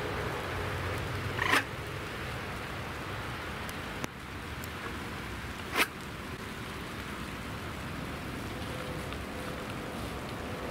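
Two quick whooshes about four seconds apart, a carp angler's throwing stick whipped through the air to fire boilies out into the lake. Rain hisses steadily underneath.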